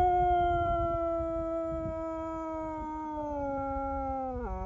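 A dog howling: one long howl that slowly sinks in pitch, then drops sharply near the end.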